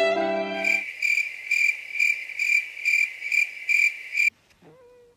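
Crickets chirping: a steady, high-pitched trill that pulses about twice a second. It comes in suddenly as violin music fades out and cuts off abruptly about four seconds in.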